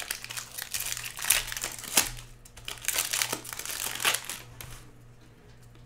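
Trading-card packaging crinkling and rustling as cards are handled: irregular crackling with a few sharper crunches, dying away about five seconds in.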